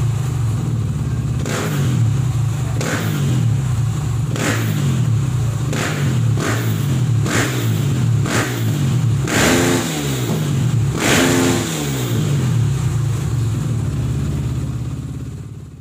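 KTM EXC 450's single-cylinder four-stroke engine through an FMF aftermarket exhaust, running with short throttle blips about once a second and two longer revs about ten and eleven seconds in. It fades out near the end.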